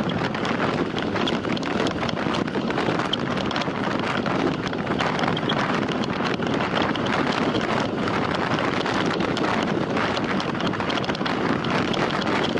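Steady wind rushing over the microphone of a camera carried on a time-trial bicycle at racing speed.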